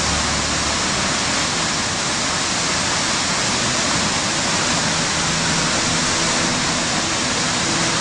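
Steady rushing water, like a waterfall or heavy rain, with faint held low musical tones coming in about halfway through.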